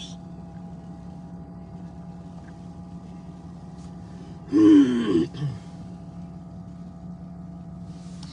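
Steady hum of a car idling, heard from inside the cabin. About halfway through, a person makes one brief, loud groan that falls in pitch.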